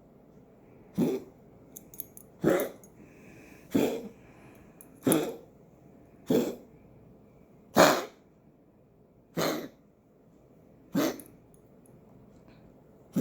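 A pet coughing over and over in a steady rhythm: eight short coughs, one about every second and a half.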